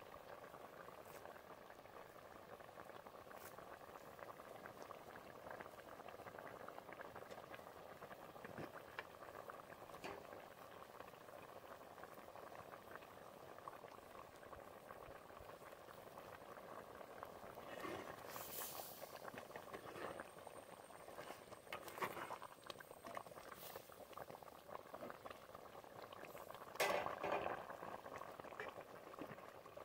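Fish curry bubbling steadily as it simmers in the pot. A few brief clinks or knocks come in the second half.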